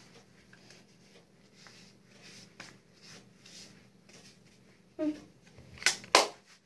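Faint, soft swishing of a brush swept over the skin of the neck, in short strokes. Near the end comes a brief vocal sound, then two sharp clicks about a third of a second apart.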